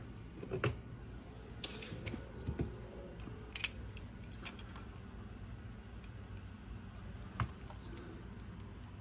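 Scattered small clicks and taps of a ball-tip hex driver and metal screws being worked into an RC crawler's servo mount, a few sharp ticks spread irregularly over the seconds, with a faint steady low hum underneath.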